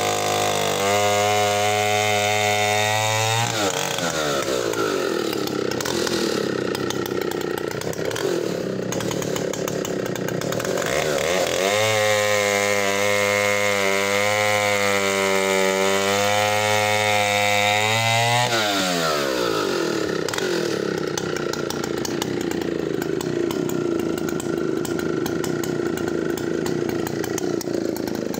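Vintage 90cc-class two-stroke chainsaw cutting a log at full throttle. The engine runs at high revs, drops in pitch as the chain bites into the wood a few seconds in, and labours through the cut. It revs back up, free-running, a little before halfway, then bogs down into a second cut about two-thirds of the way through.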